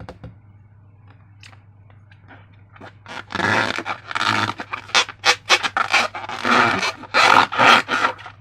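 Slime being squeezed and worked by hand: after a few faint clicks, a quick irregular run of squishes and crackles starts about three seconds in, over a low steady hum.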